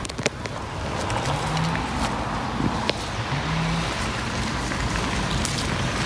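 Leaves and twigs of a wild medlar bush rustling and crackling with scattered small snaps as its branches are pushed aside and handled, under a faint low hum.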